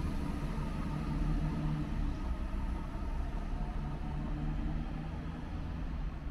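Diesel multiple-unit train's engines running as it pulls away, a low rumble with a steady hum that slowly fades as it recedes.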